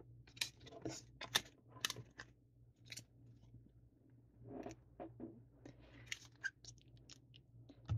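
Trading cards and foil booster packs being handled and set down on a countertop: faint, scattered light clicks and brief rustles.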